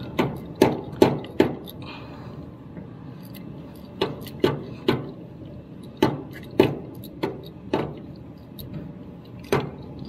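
Sharp metallic clicks and ticks at irregular intervals as a mini tubing cutter is turned and tightened around a copper refrigerant line to cut off a bad flare.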